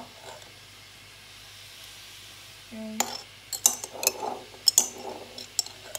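A metal spoon scraping and clinking against the inside of a glass jar of minced garlic, a string of sharp clicks in the second half. Before that there is only a faint steady hiss.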